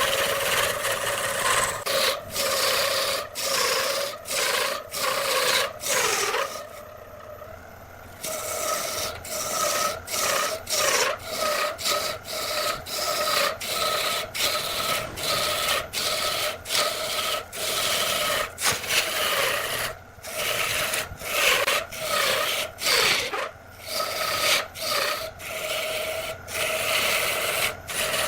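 Turning tool cutting into spinning wood on a lathe: a rough scraping in repeated short strokes over the lathe's steady hum, with a quieter pause about seven seconds in.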